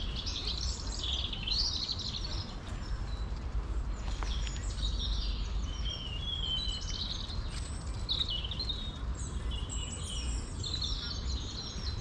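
Several songbirds singing at once in spring, overlapping chirps and trills, over a steady low rumble.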